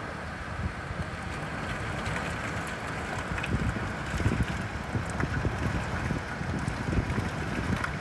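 Steady rain hiss with gusts of wind buffeting the phone's microphone, heavier in the middle.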